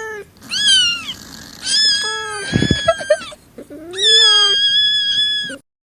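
Cat meowing: about four pitched meows that bend in pitch, two of them long and drawn out, ending abruptly shortly before the end.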